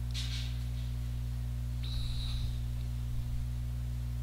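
Steady low electrical hum, with a faint brief high-pitched tone about two seconds in.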